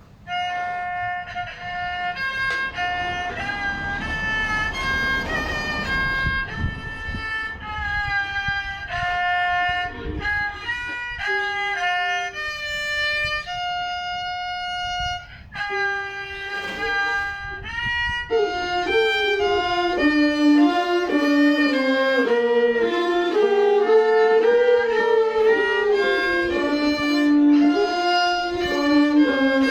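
Violin playing a slow melody of held notes moving step by step. A lower second line joins about eighteen seconds in, and the music grows a little louder.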